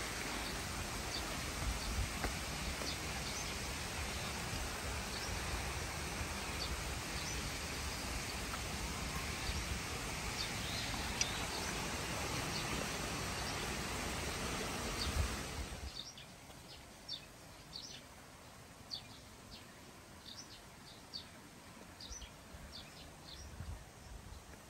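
Forest ambience: a steady rushing hiss with short, high bird chirps scattered through it. About 16 seconds in the hiss drops away abruptly, leaving quieter chirping.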